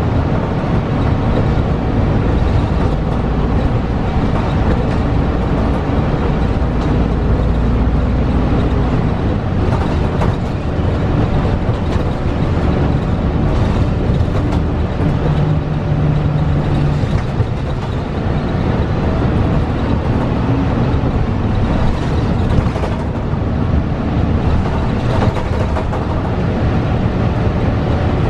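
Cabin sound of a 2012 Gillig Low Floor hybrid bus (Cummins ISL9 diesel with Voith DIWAhybrid drive) under way: a steady, loud engine and road rumble with brief held drivetrain tones coming and going. Scattered short knocks and rattles sound through it.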